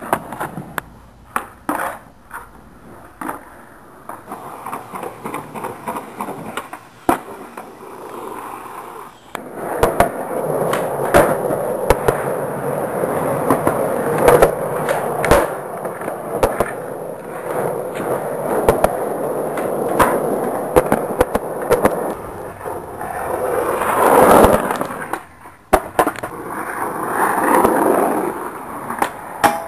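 Skateboard run: sharp clacks of the board for the first several seconds, then wheels rolling continuously with repeated knocks of pops and landings, and a loud hit about two-thirds of the way through.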